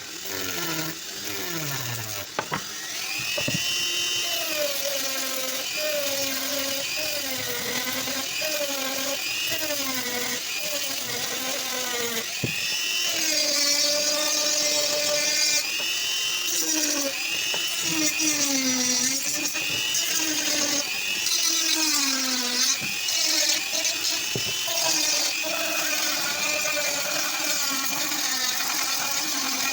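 Small high-speed electric rotary tool or drill running continuously, its whine dipping in pitch and recovering again and again as it is pressed into the work and eased off.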